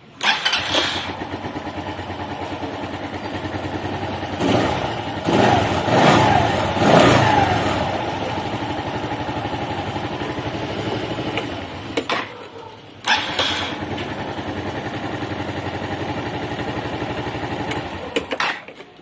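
125 cc scooter engine running with a steady rapid putter, revved up and down a few times around five to seven seconds in. It drops away around twelve seconds, starts again with a sharp burst, and settles back to an even run.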